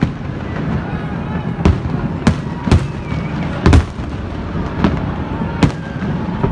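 Aerial fireworks shells bursting: about half a dozen sharp bangs at irregular intervals over a continuous rumble and crackle, the loudest bang a little past the middle.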